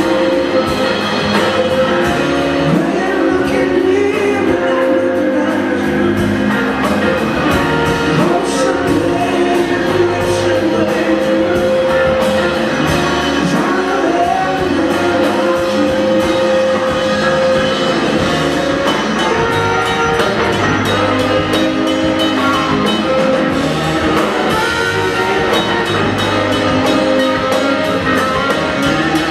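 Live rock band playing: electric guitar, bass guitar, drum kit and keyboards, with a lead vocal over them.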